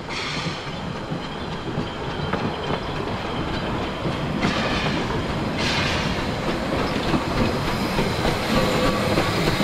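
Puffing Billy's narrow-gauge steam locomotive 12A and its van rolling slowly past: wheels clicking over the rails with steam hissing. The hiss grows stronger from about halfway through as the locomotive comes alongside.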